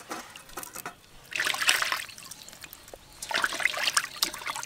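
Water splashing and trickling into a stainless steel basin as wet hands rinse and peel raw shrimp, in two short bouts with small clicks and drips between.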